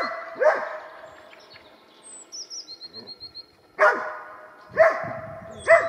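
A hunting dog barking at a squirrel up in the spruces: sharp, high barks, two at the start, then a pause and three more about a second apart near the end. A small bird's quick, repeated chirping sounds in the pause.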